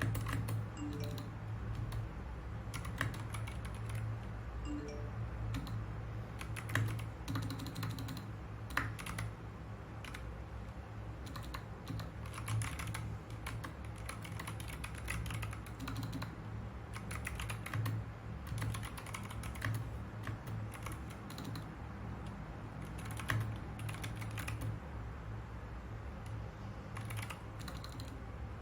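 Typing on a mechanical keyboard: a continuous, irregular patter of key clicks, with a few louder keystrokes standing out, over a steady low hum.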